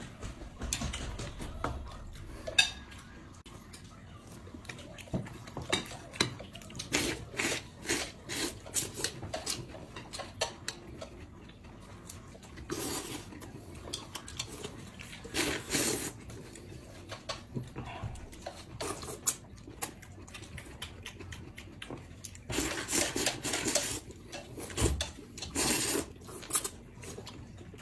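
Eating at a table: chopsticks click and tap against ceramic bowls and plates, with several longer slurps of noodles and of soup drunk from a bowl's rim.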